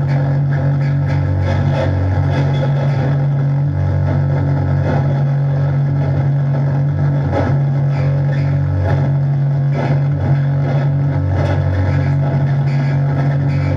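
Amplified live noise music: a loud, steady low drone that drops out briefly now and then, under a dense, grainy wash of noise.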